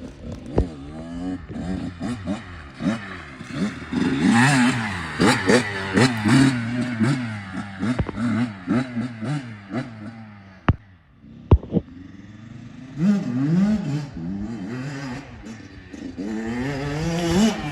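Dirt bike engine revving up and down again and again as the throttle opens and closes, with a few sharp knocks about ten to twelve seconds in.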